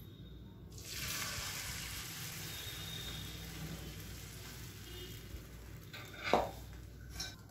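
Beaten egg-and-onion omelette batter poured into a hot oiled non-stick frying pan, sizzling as it hits the oil just under a second in and then slowly dying down. A single short knock sounds about six seconds in.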